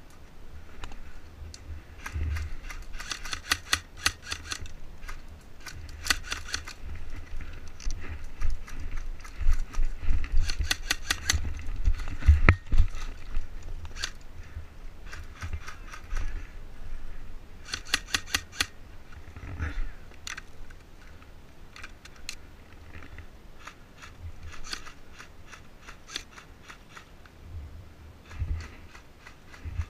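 Airsoft electric guns firing: repeated bursts of rapid, evenly spaced clicks, some lasting a second or more, with a low rumble underneath.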